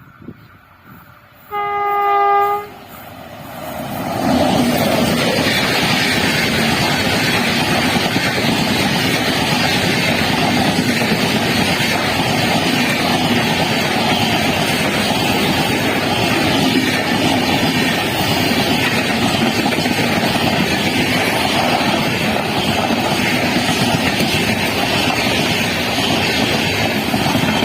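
An Indian Railways train sounds its horn in one blast of about a second, then passes at speed: a loud, steady rush of wheels and coaches on the rails lasting over twenty seconds.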